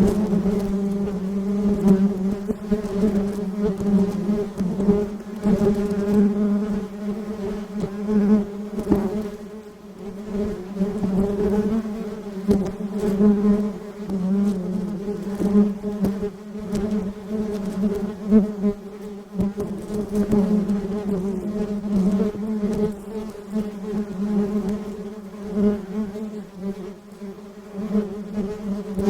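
Honeybees buzzing: a steady low hum with overtones, swelling and fading in loudness.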